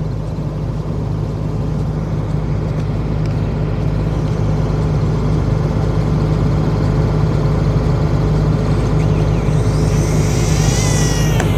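Case combine harvester's engine running steadily with a low hum, slowly growing louder. Near the end a rising high-pitched whine joins in.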